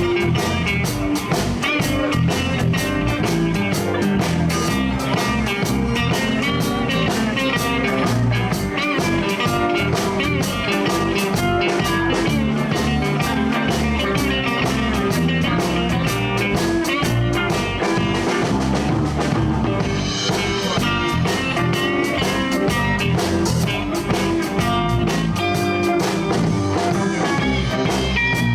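Live blues band playing an instrumental break: a guitar soloing over bass and a steady drum beat with cymbals.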